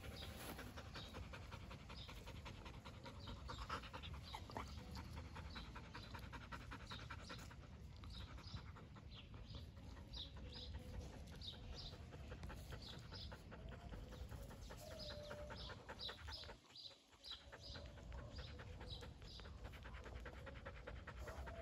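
Golden retriever panting with quick, rhythmic breaths, pausing briefly about three-quarters of the way in.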